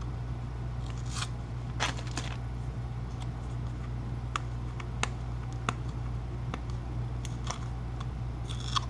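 A deck of playing cards being unwrapped by hand: the plastic wrapper crinkling, the tear strip being pulled, and small clicks and scrapes, scattered over a steady low hum.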